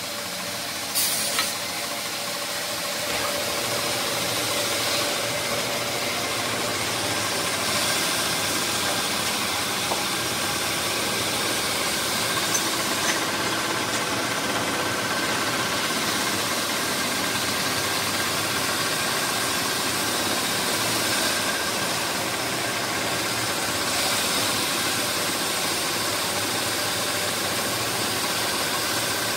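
Stone polishing machine's spinning polishing head grinding across a wet stone slab, a steady running noise that builds over the first few seconds. There is a brief clatter about a second in.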